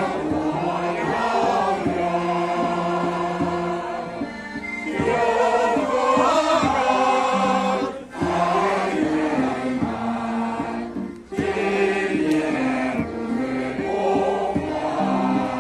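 Amateur choir of dozens of men and women singing a song together in unison, led by a man singing into a microphone, with a small live band accompanying. The singing breaks off briefly between phrases about eight and eleven seconds in.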